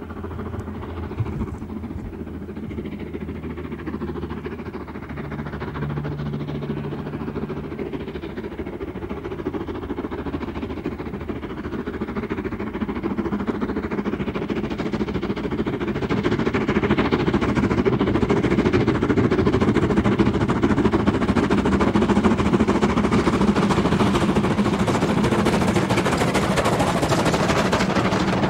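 LMS Jubilee class 4-6-0 No. 45596 Bahamas, a three-cylinder steam locomotive with a double chimney, working a train with a rapid, continuous run of exhaust beats. The beats grow steadily louder over the first half as it approaches, then stay loud as it passes close by.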